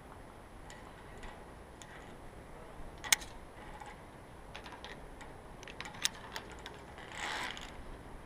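Scattered light clicks and knocks from a climber crossing a via ferrata plank suspension bridge: carabiners and lanyards on the steel hand cables and steps on the wooden planks, with two sharper clicks about three and six seconds in. A brief rush of noise comes about seven seconds in.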